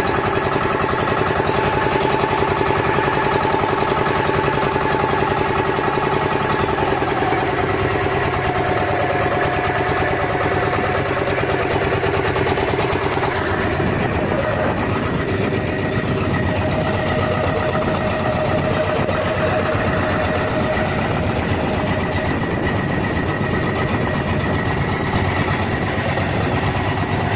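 Outrigger fishing boat's engine running steadily, its note shifting a little about halfway through.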